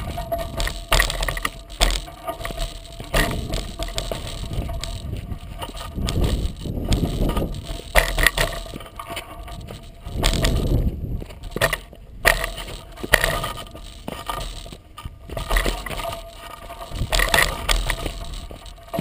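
Irregular knocks, clicks and rattles as a 36-inch Coker unicycle's knobby tyre rolls down a rocky dirt trail, heard through the frame-mounted camera, over a rough rumble. The rumble swells about six and again about ten seconds in.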